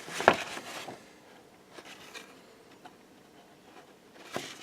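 Paper and trading cards being handled and shuffled, with a sharp click early in the first second. Then it is quiet apart from a few faint ticks, and the rustling starts again near the end.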